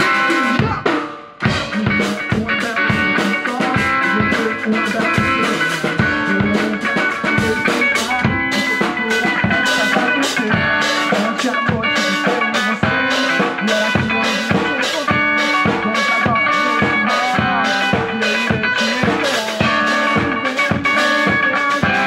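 Live band with electric guitar and drum kit playing a rock jam with a steady drum beat. About a second in the music drops out briefly, then the drums and guitar come back in.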